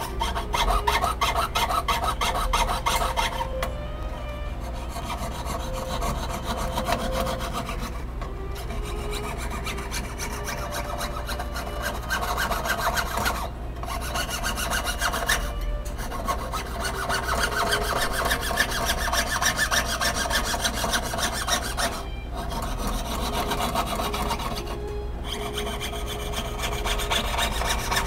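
Jeweller's piercing saw cutting sheet metal on a wooden bench pin: a fast, even rasp of short saw strokes, stopping briefly a few times.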